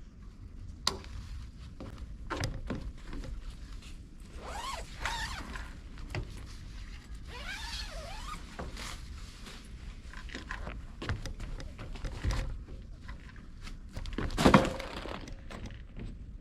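Camping gear being handled during setup: scattered knocks and thunks with rustling and swishing in between, and one louder thump near the end.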